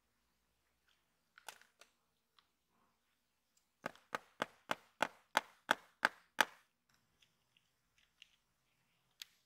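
Metal body shell of a die-cast toy Jeep knocked against a stone surface, about nine sharp taps in quick succession at roughly three to four a second. A few faint clicks from handling the parts come before and after.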